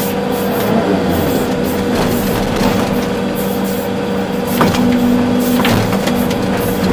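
Volvo EC380D excavator's diesel engine and hydraulics running under load, heard from inside the cab, with a steady whine and a few short knocks.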